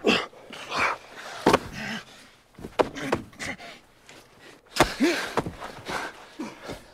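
Two men breathing hard and gasping, with several sharp thumps and rustling from bodies moving, and a short grunt about five seconds in.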